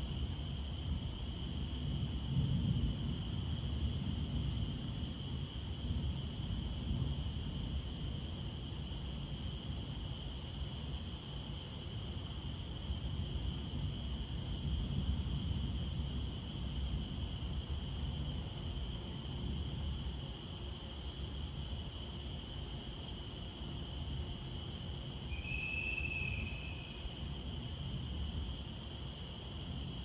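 Crickets chirring in a steady, unbroken high drone over a low, uneven rumble, with one brief higher call near the end.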